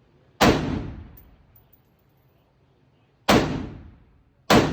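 Three 7.62x51 rifle shots. The first comes near the start, the second about three seconds later and the third a second after that. Each is a sharp crack with an echo that dies away over about a second.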